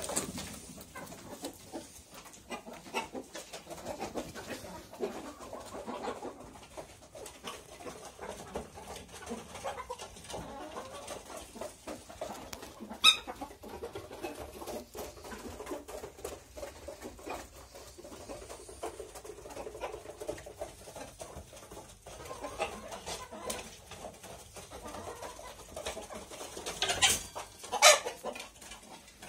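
A flock of domestic hens clucking steadily, with one short sharp click about halfway through and two louder, sharper sounds near the end.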